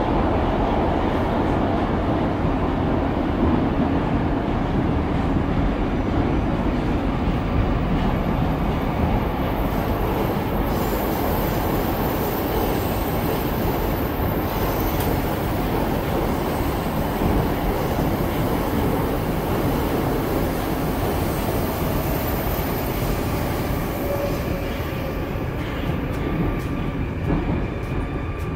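Moskva-2020 metro train heard from inside the car, running through the tunnel with a steady rumble of wheels on rail and a thin high whine. Near the end the rumble eases a little as the train draws into the station.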